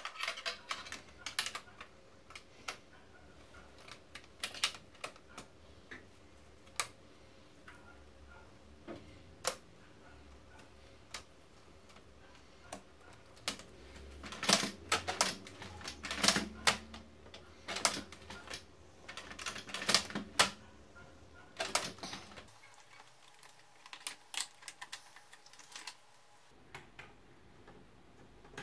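Irregular clicks and knocks of plastic and metal parts being handled inside a disassembled HP LaserJet Pro printer, busiest and loudest around the middle.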